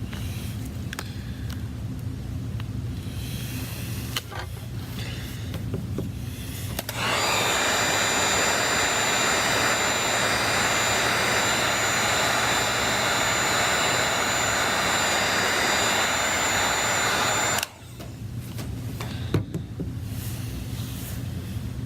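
Electric blower motor switched on, running steadily with a rush of air and a high whine for about ten seconds, then switched off. Quieter handling sounds come before and after it.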